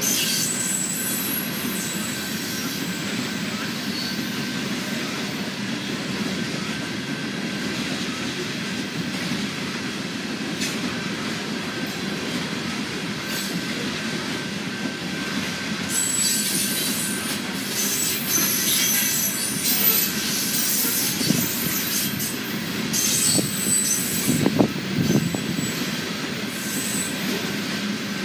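Loaded coal cars of a freight train rolling past on steel rails: a steady rumble of wheels on track, with high-pitched wheel squeal and clicks coming and going, busier in the second half.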